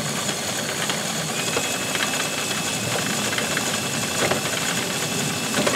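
A cordless drill spins a Suffolk Super Punch cylinder lawnmower's cutting reel at speed, with an abrasive sharpener pressed against the blades. It makes a steady whirring, grinding hiss with scattered light clicks, and a faint high whine joins in about a second and a half in. This is the abrasive sanding down the edges of the pitted cylinder blades to sharpen them.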